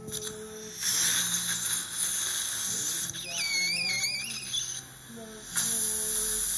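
Dental surgical suction tip hissing loudly in two long stretches, with a wavering squeal a little past three seconds in as it slurps fluid from the socket.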